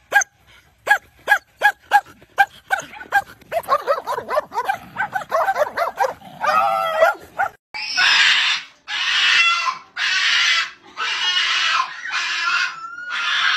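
A collie barks sharply and repeatedly, about three barks a second. This gives way to wavering, drawn-out howls and grumbles as it faces another dog through a hole under a wooden fence. From about eight seconds in, a small black-and-white dog held up in a man's arms gives five long, harsh, scream-like yowls in a row.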